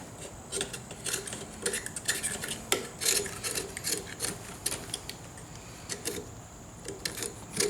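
Knife blade scraping and scratching in short, irregular strokes, cutting leftover glue and rubber of an old grip off a motorcycle handlebar.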